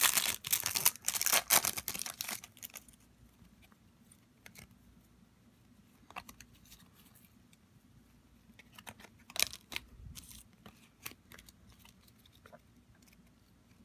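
A Panini Adrenalyn XL trading-card pack wrapper being torn open and crinkled for the first couple of seconds. After that it goes quiet, with scattered light clicks and rustles as the cards are handled.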